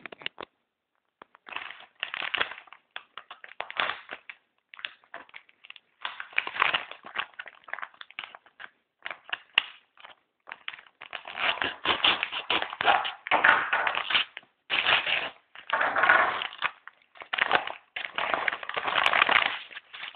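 A thin padded mailing envelope being torn open and its plastic bubble-wrap packaging handled: irregular rustling, crinkling and scraping, sparse at first and busier and louder in the second half.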